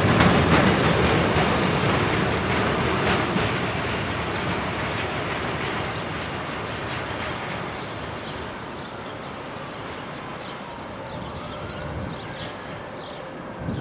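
Container freight train's wagons running past with repeated wheel clicks over the rail joints. The sound fades steadily as the last wagons pass and the train moves away.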